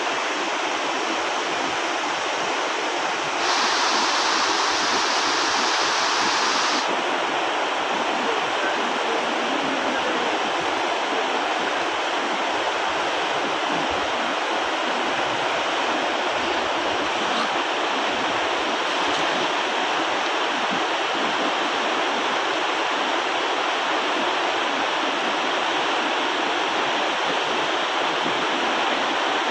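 Water pouring over a river weir: a steady, loud rush of falling water, swelling for a few seconds near the start.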